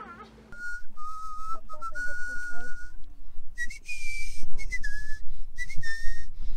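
A person whistling a slow tune in long held notes, stepping up higher about halfway through, with breathy hiss and wind rumble on the microphone.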